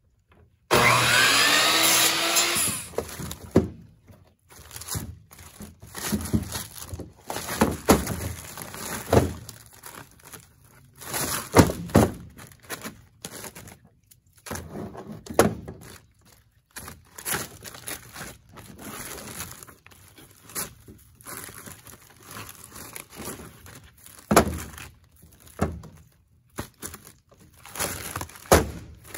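A Ridgid miter saw runs for about two seconds near the start, its whine rising as it cuts a peach branch. Then short peach-wood sticks knock and clatter against each other and the truck bed as they are handled and packed into a mesh bag, with rustling between the knocks.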